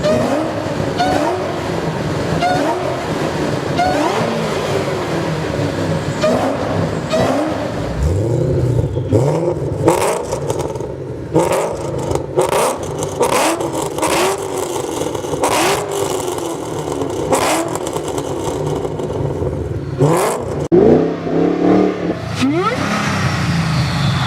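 Supercharged car engines revving again and again, the pitch climbing and dropping with each blip, with a run of sharp cracks through the middle and a steep rising whine near the end.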